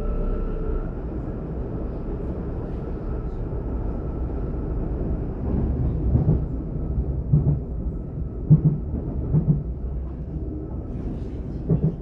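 ET 422 electric multiple unit running between stations, heard on board: a steady rumble of wheels on rail, with a faint motor whine that fades in the first second. From about halfway, a series of sharp wheel thumps over track joints.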